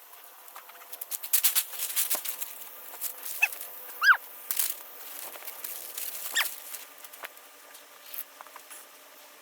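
Scattered clicks, knocks and clatter of things being handled, with three short high squeaks, the loudest one rising and falling about four seconds in.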